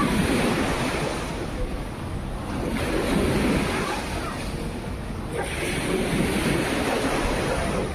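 Small waves of the Sea of Azov washing in, swelling and easing about every three seconds.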